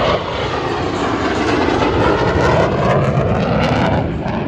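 Jet aircraft engine noise: a loud, steady rush that swells a little mid-way and eases near the end.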